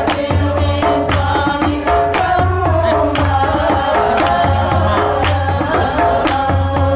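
A group of men singing an Arabic shalawat, devotional praise of the Prophet, together, over a steady rhythm of hand-drum strikes.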